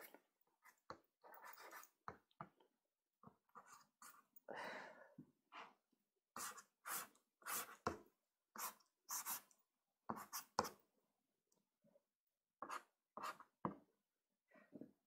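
Soft pastel stick scratching across sanded Pastelmat paper: a faint string of short strokes, each a fraction of a second, with brief pauses between.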